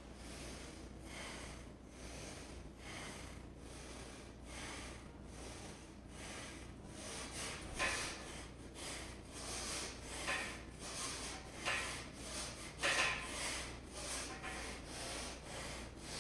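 A person breathing hard in steady, repeated breaths about once a second, louder and sharper in the second half: the heavy breathing of someone working through rounds of deadlifts and chin-ups.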